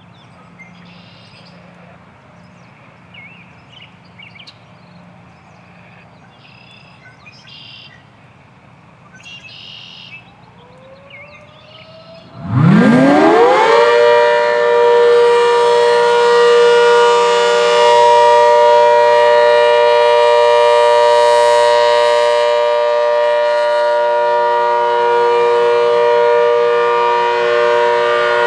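Birds chirp faintly for about twelve seconds, then an ACA Hurricane 130 MKII tornado siren starts up. Its tones sweep sharply up in pitch and settle into a loud, steady alert tone.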